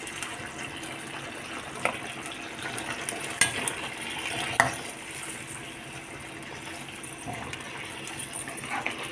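Metal spatula stirring simmering chicken curry in a black wok: a steady bubbling sizzle, with the spatula clinking sharply against the pan three times in the first half.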